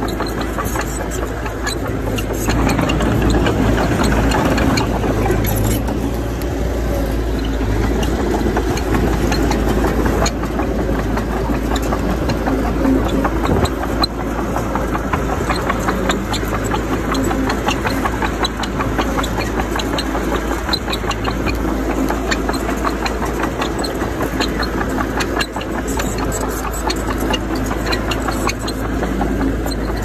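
Diesel engine of heavy earthmoving machinery running steadily, with many small knocks and rattles throughout.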